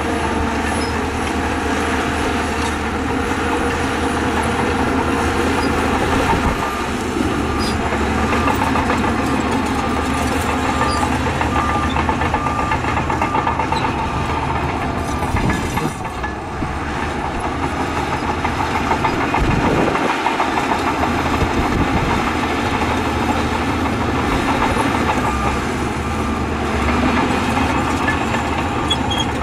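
Heavy diesel earthmoving machinery running steadily: a Shantui crawler bulldozer's engine working under load, with its steel tracks clanking and rattling.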